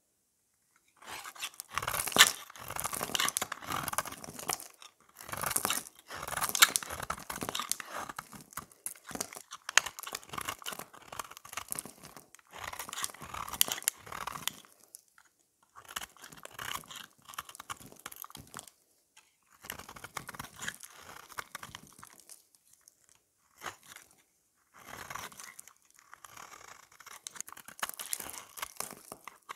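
Utility-knife blade cutting and shaving a hand-held bar of red-painted dry soap: bouts of crunching and crackling as each stroke carves off shavings, with short pauses between strokes.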